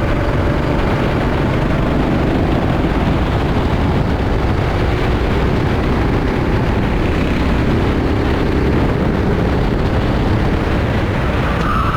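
Rental kart engine running steadily on track, blended with a dense rushing noise. A brief squeal sets in near the end.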